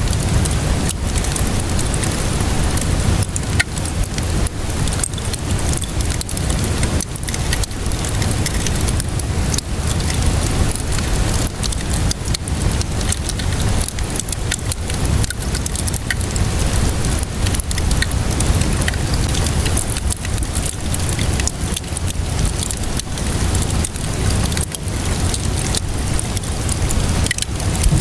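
Steady rain with a low rumble, mixed with the irregular snaps and pops of a crackling wood fire.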